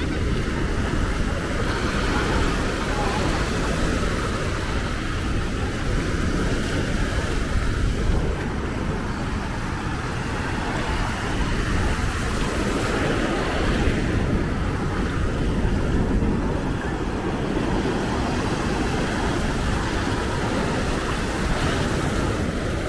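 Steady outdoor street ambience: road traffic noise with people's voices in the background.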